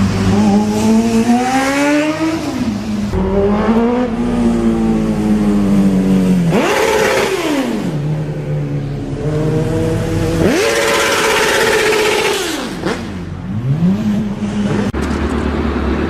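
High-revving motorcycle engine run hard. Its pitch climbs and drops sharply about two and a half seconds in, swells and falls away again twice, near the middle and about two-thirds through, then dips and picks up near the end.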